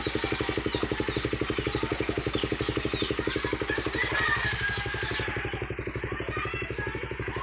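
Suzuki Raider 150 Fi's single-cylinder four-stroke engine idling steadily after a fresh overhaul, its exhaust beating in even, rapid pulses.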